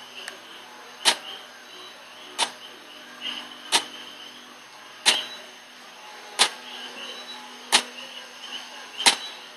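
Electric baby swing running, its drive mechanism giving a sharp click about every one and a third seconds as the seat swings back and forth.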